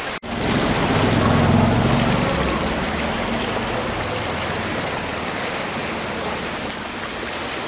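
Floodwater rushing down a flooded street, a steady noisy wash. A low rumble is strongest for the first few seconds after a brief break in the sound near the start.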